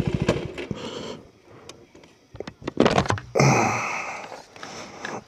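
Motorcycle engine idling with an even beat, switched off just after the start. Then scattered clicks and knocks from handling the bike, and a breathy rush of noise about three and a half seconds in that fades away.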